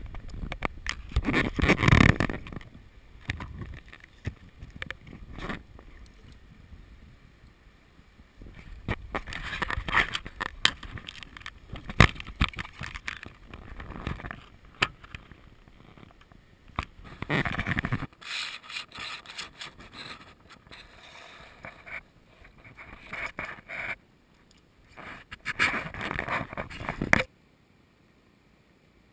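Water splashing and sloshing in irregular bursts as someone wades a shallow, rocky stream, with scrapes and knocks close to the microphone; it cuts off suddenly near the end.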